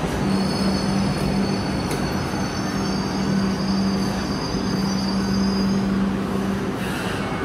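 Hong Kong Light Rail train running at the stop: a steady low hum over a broad rumble, with a high-pitched whine that stops about six seconds in.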